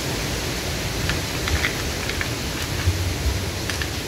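A steady hiss with a few light clicks and rustles as rope is fed through the sheaves of a multi-sheave pulley block.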